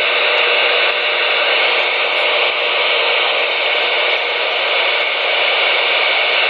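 CB radio receiver hissing with a steady rush of static from its speaker between transmissions, tuned near 27.18 MHz on the 11-metre band.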